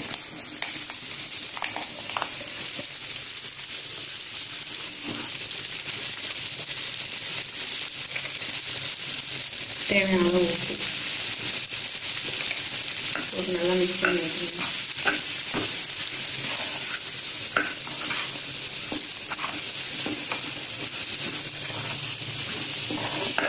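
Sliced ivy gourd (kovakkai) sizzling in hot oil in a pan while being stirred, with short scrapes and taps of the spatula against the pan scattered through a steady sizzle.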